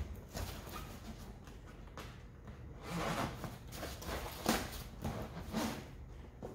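Zipper on a fabric Jeep roll bar cover being pulled closed in several short, uneven strokes, with the cover's fabric rustling against the bar.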